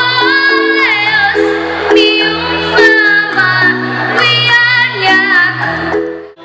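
Music: a high solo voice sings a melody with sliding notes over sustained chords and a bass line. It cuts off abruptly near the end.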